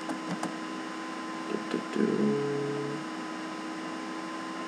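Steady electrical hum with a few sharp mouse clicks. A brief low tone lasts about a second, starting about two seconds in.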